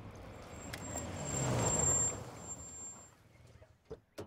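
A car, an AMC Gremlin, pulls up: its running noise swells, falls in pitch and then stops about two seconds in, with a thin high squeal of the brakes. Two short knocks follow near the end.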